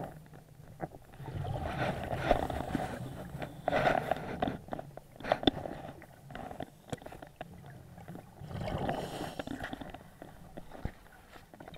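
Scuba regulator breathing heard underwater: the diver's exhalations bubble out in rushing swells a few seconds apart, with small clicks and knocks in between.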